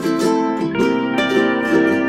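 Background music: a bright, plucked-string tune with quick notes, in the manner of a ukulele.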